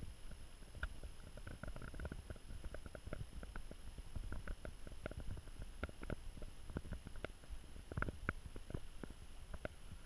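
Faint low rumble with scattered, irregular small clicks and crackles, over a thin steady high-pitched whine.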